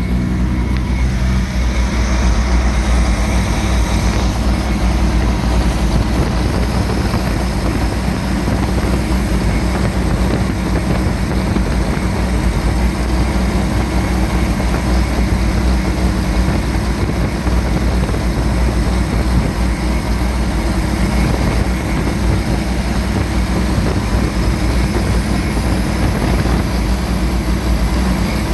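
Carbureted engine idling steadily with no change in speed. It is running on the refitted carburetor, whose fuel inlet thread has an O-ring type repair.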